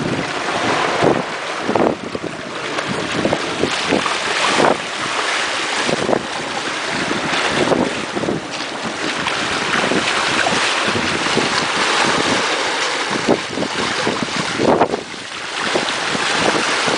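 Water rushing and splashing past the hull of a fast-moving sailboat, with wind buffeting the microphone in irregular gusts.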